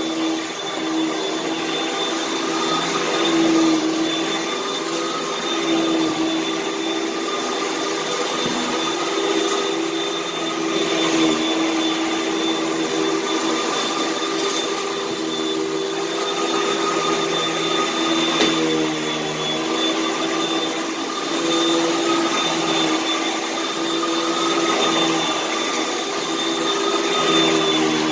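Vacuum cleaner running steadily, its motor whining at a constant pitch over a rush of airflow, with slight swells in level and a few faint ticks as it picks up debris.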